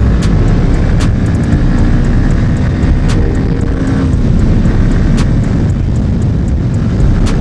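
Yamaha MT-15's single-cylinder engine running as the motorcycle is ridden on the road, its engine note heard through a steady low rumble.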